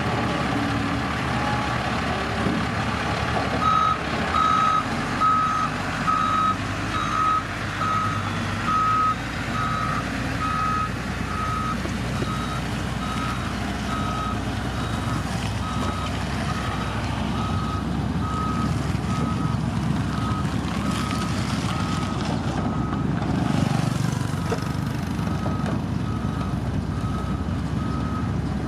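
Reversing alarm on a heavy road-construction machine beeping at a steady pace, a little more than once a second, starting about four seconds in, over the steady rumble of a diesel engine running.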